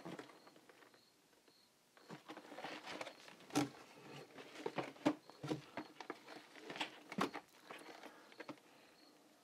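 Boxed model-train cars being handled in a cardboard shipping carton: after a short quiet spell, a run of light, irregular taps, knocks and rustling as one box is set down and another lifted out.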